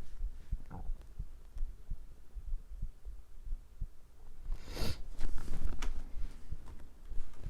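Human stomach growling, picked up by a microphone held close against the belly: a short frog-like croak under a second in and a louder gurgle about five seconds in, over low, steady thumping.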